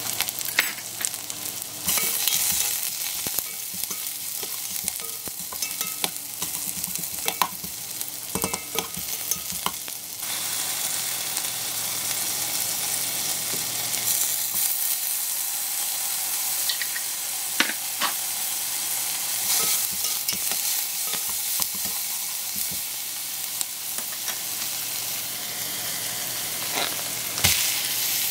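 Sliced onion, ginger and minced garlic sizzling in hot sesame oil in an enamel pot, with scattered clicks of a utensil stirring against the pot. The sizzle gets louder about ten seconds in. A single heavy thump near the end is the block of ground pork dropping into the pot.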